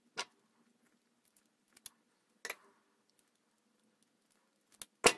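Scattered short clicks and taps of spade connectors, wire and crimping pliers being handled, with the sharpest, loudest click near the end.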